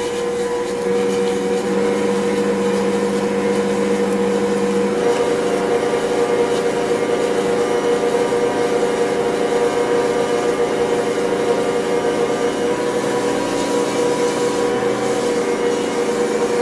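Ankarsrum Assistent stand mixer's motor running steadily, turning the stainless steel bowl while the roller and scraper work a double batch of dinner-roll dough. A steady whine whose tone shifts slightly about five seconds in.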